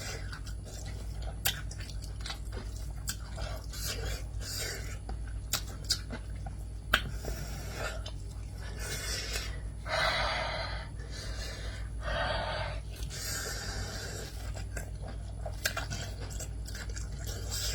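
A person chewing and crunching food into a close microphone, with scattered sharp clicks and a few longer wet, noisy mouth sounds.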